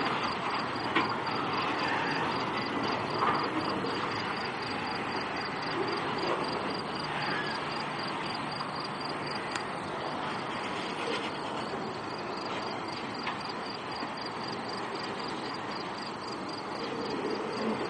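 Freight train of autorack cars rolling past with a steady rumble of wheels on rail and a few clanks, while insects chirp in a fast, even, high-pitched pulse.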